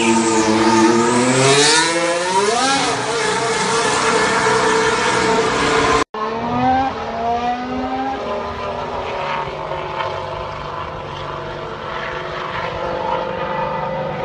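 Formula One cars' turbocharged V6 engines. For the first six seconds a car pulls away with its engine note rising steeply. After a sudden cut a car is heard farther off on the track, its engine note gliding and then holding steady.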